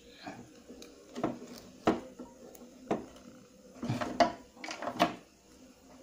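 A handful of sharp clicks and light knocks, spaced irregularly, from a plastic ribbon-cable connector and small circuit board being handled and pushed together.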